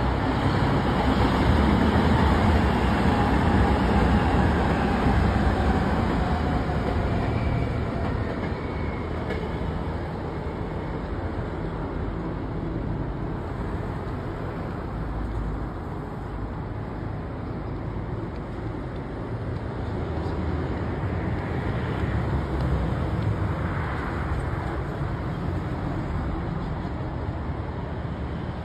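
Electric commuter train running past: a steady rumble of wheels on rail with a faint falling whine over the first several seconds. The noise then eases off and swells again briefly a little after twenty seconds in.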